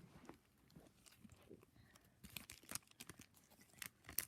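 Faint crinkling and small clicks of a foil Pokémon booster pack wrapper and cards being handled as the pack is opened, growing busier in the second half.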